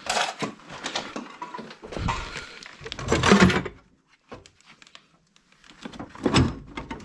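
Metal hard drive parts and hand tools clinking and knocking as the drive is worked apart. The loudest cluster comes about three seconds in, followed by a short pause and more clatter near the end.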